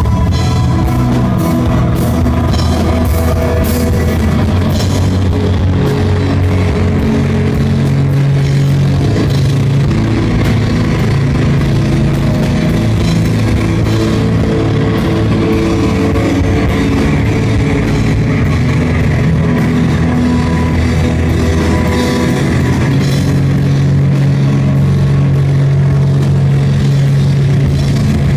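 Live rock band playing at a steady loud level: drum kit with cymbals, electric guitar, bass guitar and keyboards together in an instrumental passage.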